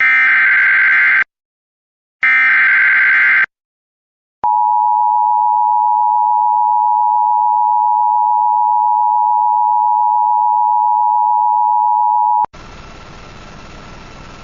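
Emergency Alert System broadcast on NOAA Weather Radio. Two SAME header data bursts, each a warbling modem-like screech of about a second with a short silence between them, are followed by the single steady 1050 Hz weather-radio alert tone, held for about eight seconds. The tone cuts off abruptly into radio hiss, the lead-in to a new warning.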